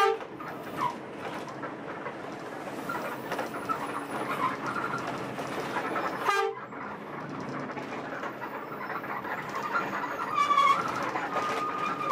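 Running noise inside a Mercedes-Benz 1526 coach on the move, with two short horn blasts, one at the start and one about six seconds in, and a higher, briefer tone near the end.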